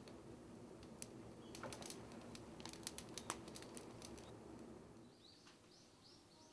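Split wood burning in the firebox of a wood-fired pottery kiln, crackling with sharp pops between about one and four seconds in over a faint low rumble. From about five seconds in, a bird calls with a run of short repeated chirps.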